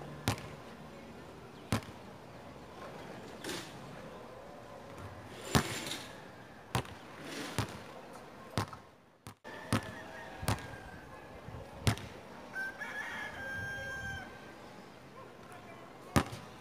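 A basketball bouncing on a hard outdoor court: about ten sharp, irregularly spaced bounces as it is dribbled and shot. A rooster crows once, for about a second and a half, a little past the middle.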